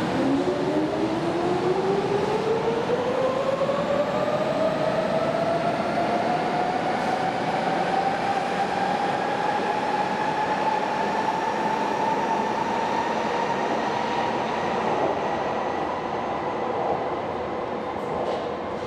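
Berlin U-Bahn train pulling away, its traction motors giving a whine that rises steadily in pitch for about ten seconds as it gathers speed, then holds steady, over the rumble of wheels on rail.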